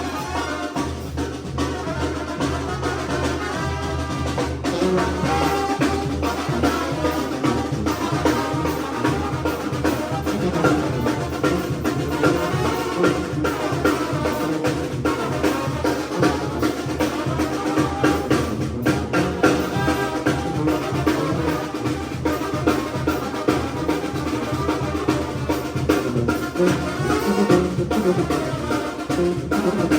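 Mexican brass band (banda) playing: trumpets and trombones over drums, with a steady beat.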